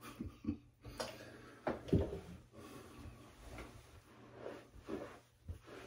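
Face being patted and rubbed dry with a plush towel: irregular soft rustling and dabbing. A dull knock about two seconds in is the loudest sound.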